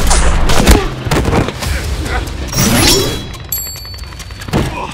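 Background music with a run of sharp hits and brief cries over it. Near the end there is a short burst of high electronic tones.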